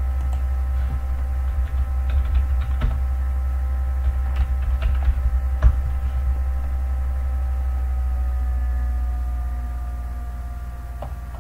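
Computer keyboard typing, a handful of scattered key clicks over the first six seconds, over a loud steady low hum with faint high tones that eases off a little near the end.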